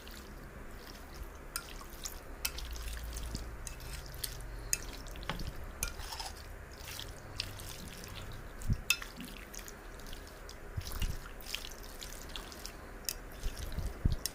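Raw chicken pieces being mixed by hand in a wet spice marinade in a bowl: irregular squelching and sticky clicking over a low steady hum.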